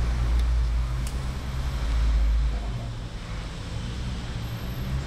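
Low, steady rumble of a road vehicle's engine, loudest about two seconds in and then fading. Two faint clicks in the first second.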